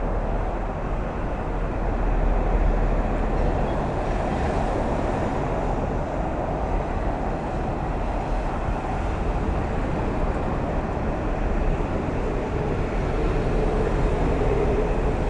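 Steady toll-road traffic noise: a continuous rumble and hiss of vehicles' tyres and engines at highway speed.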